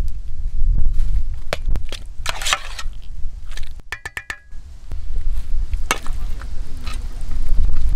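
Metal spoon stirring and scraping boiled potato chunks in a copper pot, with a quick run of ringing metallic clinks about halfway through, then knocks as the potatoes are tipped onto a ceramic platter. A steady low rumble runs underneath.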